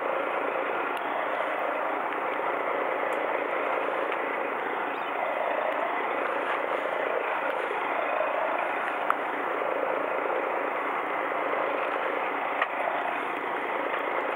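Steady running noise of a fishing boat's engine, with water and wind noise, holding at one level throughout. Two short sharp clicks stand out, one a little past the middle and one near the end.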